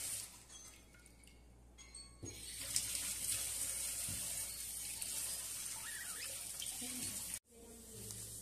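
Water running steadily from a tap, starting about two seconds in and cutting off abruptly near the end.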